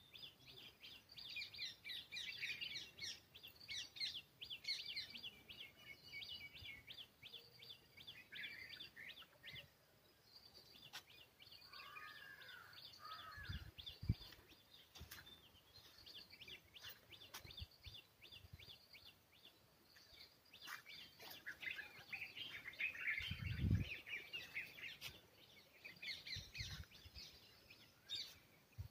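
Songbirds chirping and twittering in quick runs of high notes, with a few lower curving notes about twelve seconds in. A couple of low thumps come through, one about two-thirds of the way in.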